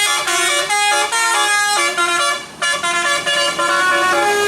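Bus's multi-tone 'telolet' musical air horn playing a quick tune, the notes stepping up and down several times a second, with a short break about two and a half seconds in.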